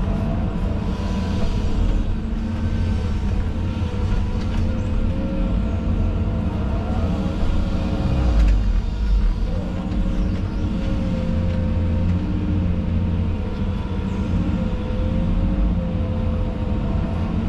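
Excavator's diesel engine running steadily under load as it digs and loads, with a thin, slightly wavering whine held over the rumble.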